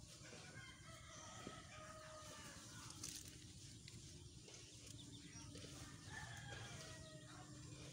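Quiet outdoor background with faint, distant drawn-out animal calls, one about a second in and another about six seconds in.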